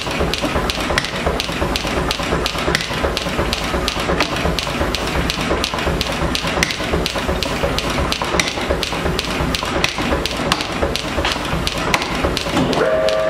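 Steel hammer blows striking a red-hot bar on an anvil in a quick, even rhythm, over a steady rushing noise. A steady whine starts just before the end.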